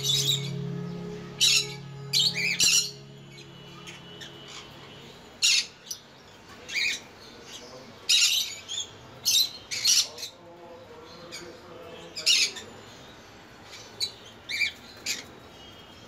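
Rainbow lorikeets giving short, shrill squawks at irregular intervals, sometimes two or three in quick succession.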